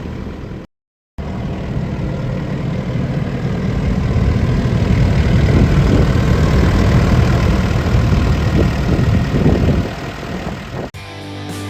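Komatsu PC88MR-10 excavator's diesel engine running, cut off briefly about a second in, and growing louder in the middle before dropping back. Guitar music comes in near the end.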